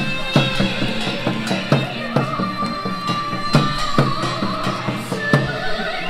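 Korean folk dance music with a held melodic line, punctuated by loud, irregular strokes on Korean barrel drums (buk) beaten with sticks.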